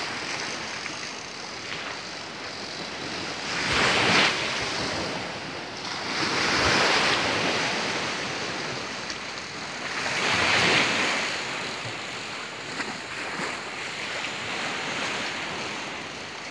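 Small waves washing and lapping in choppy shallow water, swelling every three seconds or so, with wind on the microphone.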